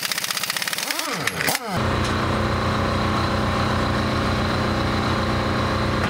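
Pneumatic impact wrench hammering rapidly on a truck wheel's nuts, its pitch swinging up and down about a second in. It then gives way to an engine idling steadily.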